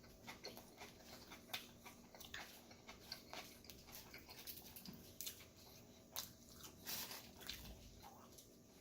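A person chewing a burger with the mouth close to the microphone: soft, irregular wet clicks and crackles.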